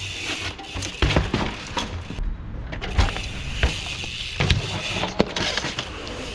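Mountain bike ridden on concrete: tyres rolling, with a series of sharp knocks and clunks as the wheels drop and land, about six in all.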